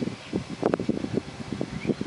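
Wind buffeting the microphone in irregular gusts, over a faint steady hum from a jet airliner's engines.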